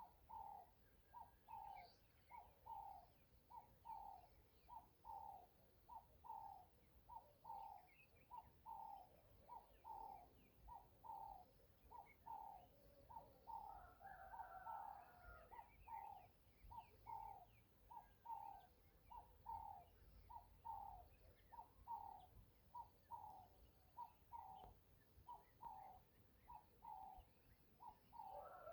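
Faint bird calls outdoors: one short note repeated steadily about once a second, with a fuller, more complex call briefly around the middle.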